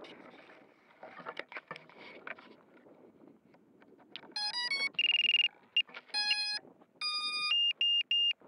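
Handling clicks and rustles, then an FPV racing quadcopter's ESCs sounding their startup tones through the motors: a run of stepped electronic beeps and a held tone from about halfway, ending in three short even beeps. This is the power-up signal once the flight battery is connected.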